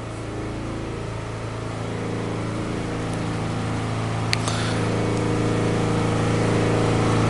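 A steady, low engine-like hum that grows gradually louder, with a single sharp click about four seconds in.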